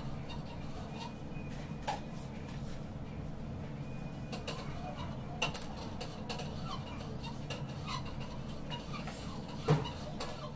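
Steady low hum of room noise with a few light clicks and knocks scattered through it, the sharpest a short knock near the end.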